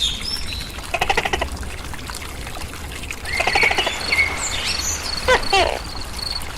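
Outdoor animal calls: chirping birds, a steady high cricket trill that starts about three seconds in, and short rattling pulsed calls with a pair of falling-pitch calls about five seconds in.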